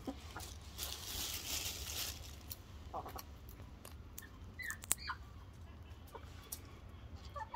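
Chickens giving a few short, soft rising calls spaced out over several seconds, with rustling in the grass and a single sharp click about five seconds in.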